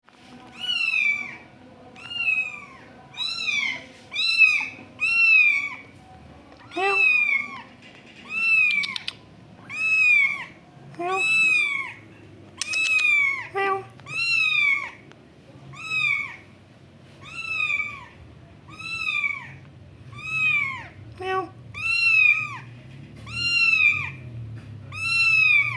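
Newborn kitten meowing over and over, high-pitched calls that rise and fall, about one every second and a half, with a few brief lower sounds between them.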